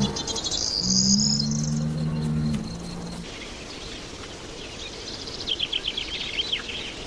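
Birds chirping and insects trilling, with a low steady droning tone for the first three seconds and a quick run of bird chirps near the end.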